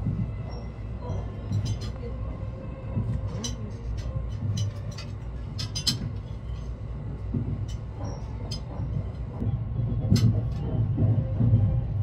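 Steady low rumble of the Cassiopeia sleeper train running, heard inside its dining car, with scattered light clinks of cutlery on a china plate.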